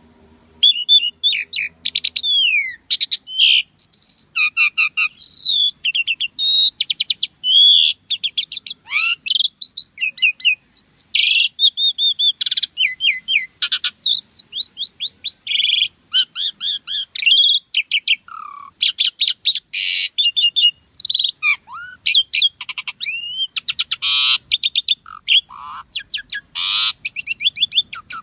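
Asian pied starling (jalak suren) in full song: a long, unbroken string of varied phrases, mixing clear whistles, rising and falling glides, fast trills and harsh chattering notes with hardly a pause between them.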